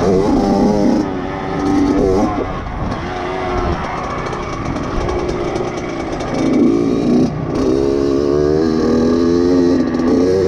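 Dirt bike engine heard up close from the riding position, its pitch climbing and falling again and again as the throttle is worked, with several sudden drops in pitch.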